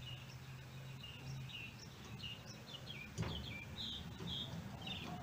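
Small birds chirping in the background, short high calls scattered throughout. There is a faint low hum for the first second and a half and a single light knock about three seconds in.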